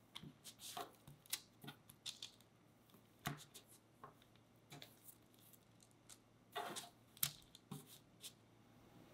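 Faint taps and rustles of a small round stainless steel cake cutter pressing through sponge cake sheet onto parchment paper, with cut cake pieces being handled and set down. There are about a dozen brief, scattered sounds, the sharpest a tap about seven seconds in.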